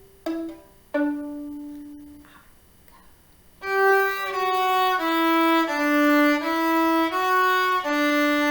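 Solo viola: two plucked (pizzicato) notes, the second left ringing, then after a short pause a run of short bowed (arco) notes stepping down and back up, ending on a longer held low note.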